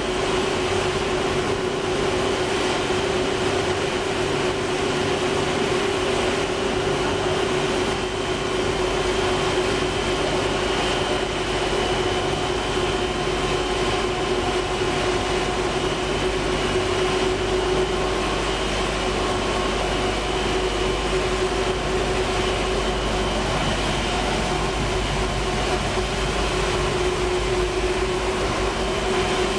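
Steady drone of a running dog food production line's machinery: a constant mid-pitched hum with a fainter high whine above it, over low rumble and hiss, unchanging throughout.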